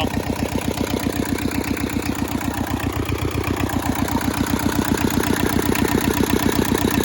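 Hinomoto E150 compact tractor's Toyosha S88 diesel engine idling steadily with an even, rapid beat of firing pulses.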